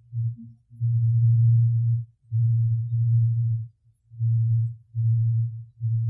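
A low, steady-pitched hooting tone in a run of about five notes, each up to about a second and a half long, with short breaks between them. It is from an overnight wilderness recording, and the analyst likens it to a primitive flute or jug band; its source is unidentified.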